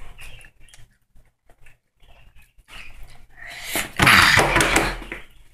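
A boy lets out a loud, raspy outcry about four seconds in, lasting a second and a half, in reaction to the burn of a hot chili pepper he has just bitten. Before it, only a few faint clicks.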